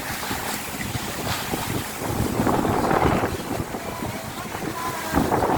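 Strong storm wind gusting and buffeting the microphone, a continuous rough rushing noise with heavy low rumble that swells and eases.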